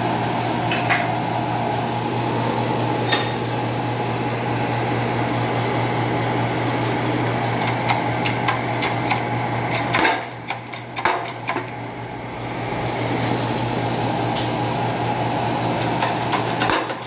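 A press motor runs with a steady hum while it pushes the old bearing out of a Ford 7000 water pump housing, with scattered metallic clinks and knocks as the housing shifts under the ram. The hum drops out about ten seconds in and comes back a couple of seconds later.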